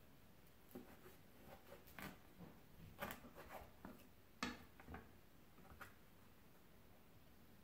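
Chef's knife cutting through a minced-meat waffle on a cutting board: a scatter of faint crunches and taps of the blade on the board, the loudest about three and four and a half seconds in.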